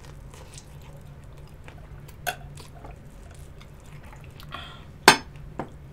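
Close-miked wet mouth sounds of eating chicken wings and sipping iced water: a few short sharp clicks, the loudest about five seconds in, over a steady low hum.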